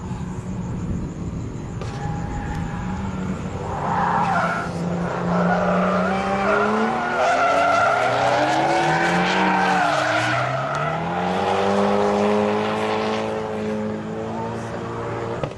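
Nissan 180SX drifting: its engine revs up and down under load while the tyres squeal and skid. The squeal is loudest through the middle stretch, and the engine pitch dips sharply once and climbs again.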